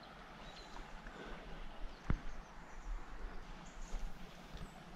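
Quiet riverside ambience with small irregular rustles and one sharp click about two seconds in.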